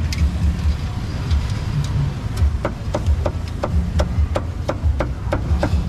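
Low, steady engine and traffic rumble of a busy street. Over it comes a run of sharp, evenly spaced knocks, about three a second, from about halfway through.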